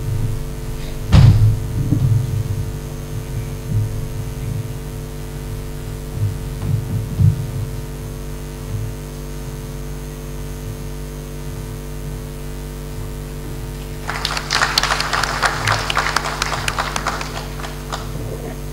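Audience applause: a few seconds of clapping starting late and fading out near the end, over a steady electrical hum from the hall's sound system. A single loud thump about a second in.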